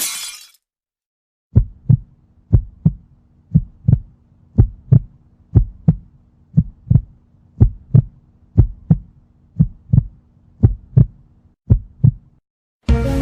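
Heartbeat sound effect: paired low thumps, lub-dub, about once a second over a faint steady hum, eleven beats in all. It ends abruptly, and music starts near the end.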